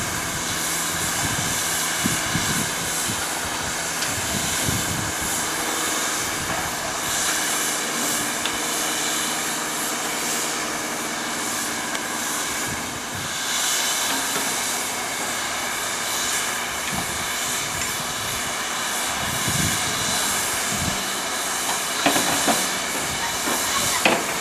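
Class 50 steam locomotive standing with a steady steam hiss, a low hum under it that fades about halfway through. A few sharp knocks near the end.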